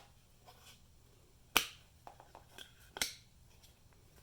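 Two sharp clicks about a second and a half apart, with a few fainter ticks between them, as the plastic and metal parts of a truck door latch assembly are handled and fitted together.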